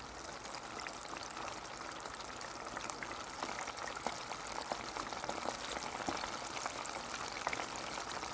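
Panko-breaded chicken tenders deep-frying in a pot of hot oil heated past 360°F: a dense crackling sizzle that grows louder over the first second or two as more pieces go in, then holds steady.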